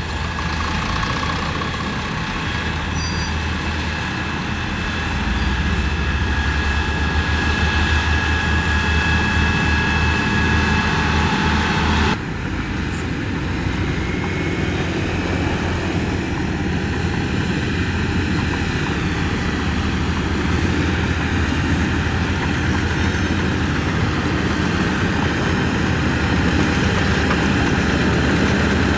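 Diesel engine of a heavy road-construction machine running steadily, with an abrupt change in the sound about twelve seconds in.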